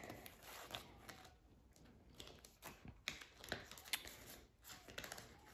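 Faint rustling and light taps of paper banknotes being handled and tucked into a clear plastic pouch.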